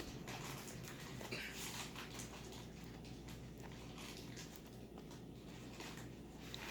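Slime being pulled and stretched by hand, faint sticky crackles and soft clicks scattered throughout.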